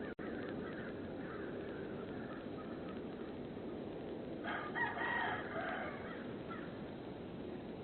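A bird's call, about a second and a half long, starting about four and a half seconds in, over a steady hiss from the doorbell camera's microphone. Fainter calls come and go in the first couple of seconds.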